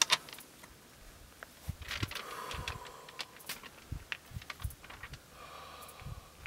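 Two sharp gunshot cracks close together right at the start, followed by scattered light clinks and rustling.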